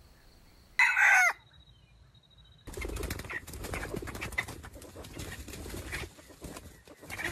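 A junglefowl rooster gives one short, loud call that falls in pitch about a second in. From near the three-second mark comes a dense rustle of rapid clicks, wing-flapping and scuffling in the leaf litter, with short clucks over it.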